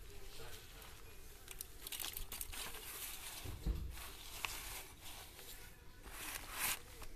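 Hand sweeping moist cocopeat over a plastic seedling pro tray to fill its cells: uneven rustling and scraping of the coir fibre against the plastic, in irregular strokes, loudest near the end.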